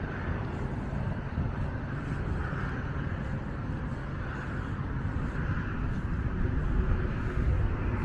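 Steady outdoor background noise: a heavy low rumble with a softer hiss above it, growing a little louder near the end.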